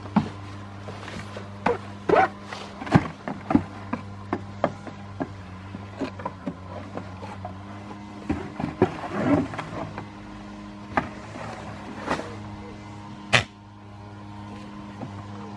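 Goat kid butting and shoving an empty cardboard box: an irregular series of sharp knocks and hollow thumps on the cardboard, over a steady low hum.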